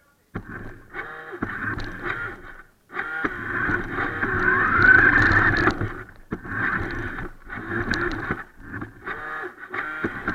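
Electric motor and gears of a radio-controlled toy car whining in four bursts as the throttle is applied and released, with a rising whine as it speeds up about halfway through.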